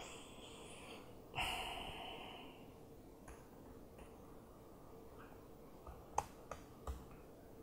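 A person's breath, loud on the microphone, about a second and a half in, fading over about a second; a few laptop keyboard key taps near the end, over a faint steady hum.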